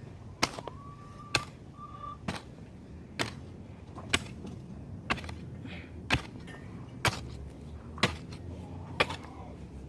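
A hand tool chopping into the ground in a steady rhythm, a sharp strike about once a second, as soil is worked and roots cut for planting beds.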